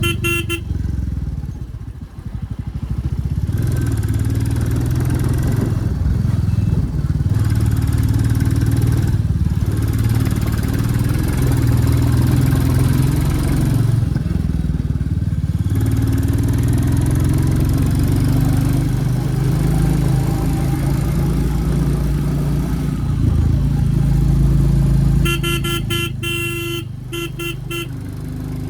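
Royal Enfield Classic 350's single-cylinder engine running on the move, its exhaust note rising and falling with the throttle. A horn sounds in a quick burst just after the start and again in a string of short rapid beeps near the end.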